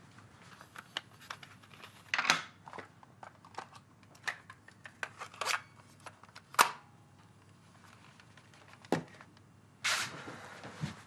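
Quiet handling sounds of small objects: a scatter of sharp clicks and light rustles, the loudest about two, six and a half and nine seconds in, with a short rush of noise near the end.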